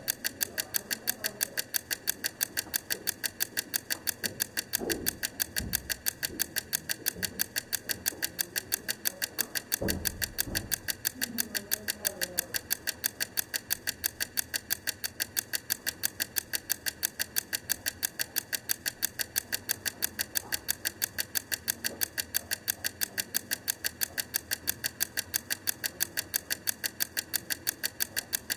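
Wind-up mechanical egg timer (Wrangler Blue Bell) ticking steadily with a quick, even beat as its clockwork runs down.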